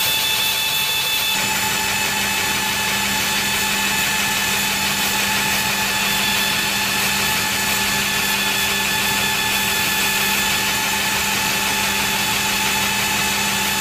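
Electric motorcycle's Agni motor and belt drive running steadily on a rolling road dynamometer under heavy continuous load, drawing about 150 amps from the battery pack: a steady mechanical whine of several held tones over even noise, the tones shifting slightly about a second in.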